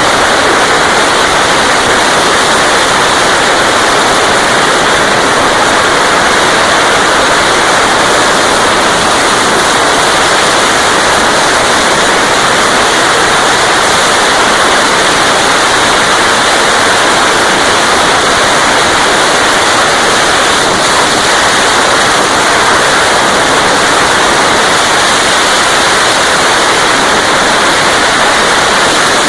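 Steady, loud wind rush over the microphone of a motorcycle travelling at high speed, with no distinct engine note standing out of it.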